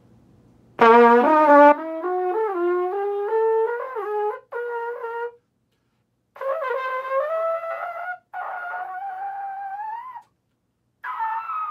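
Valve trombone played through a Bach 1E trumpet mouthpiece: a loud first note about a second in, then series of notes climbing in short phrases with brief pauses, rising into the high register.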